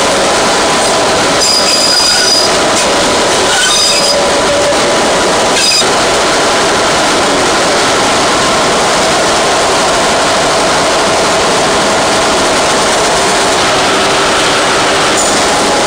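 Diesel-hauled train running along a curving line: a steady, loud rumble of wheels on rail and running gear, with a few short, high-pitched wheel squeals in the first six seconds as it takes the curves.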